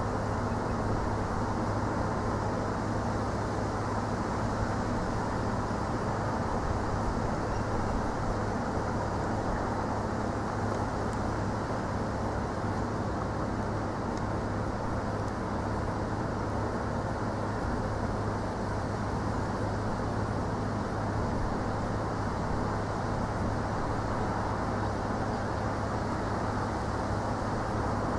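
Steady outdoor background rumble with a low hum, unchanging throughout, with no distinct events.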